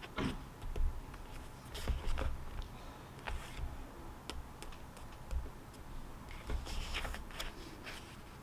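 Scattered small clicks and taps with a few brief scratchy rustles, the handling sounds of someone working at a desk. They come more thickly about two seconds in and again near the end.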